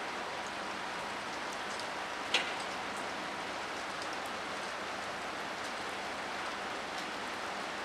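Steady rain falling on wet pavement, an even patter of drops. One single louder click stands out about two seconds in.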